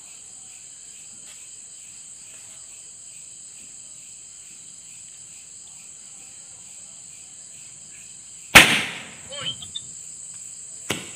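Crickets chirp steadily until a firecracker goes off with one loud bang about three quarters of the way in. A few smaller crackles follow, then a second sharp crack near the end.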